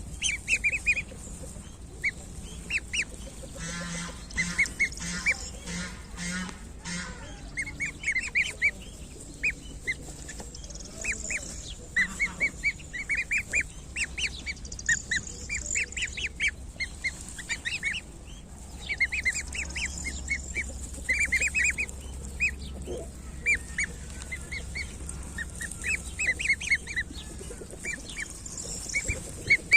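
Goslings peeping: many short, high-pitched calls, repeated in quick clusters. About four seconds in comes a run of about six lower, harsher calls.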